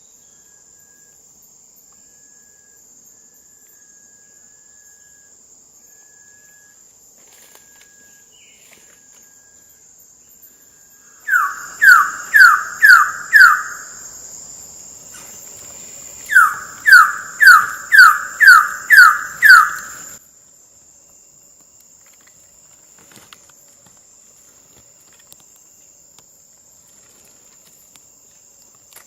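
Wilson's bird of paradise calling in two loud runs of sharply down-slurred notes, five and then seven in quick succession, over a steady high insect drone.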